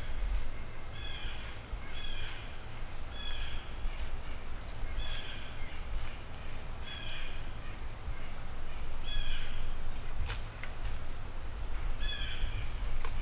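Crows cawing in short series, with pauses between bursts, over a steady low rumble. A single sharp tick comes about ten seconds in.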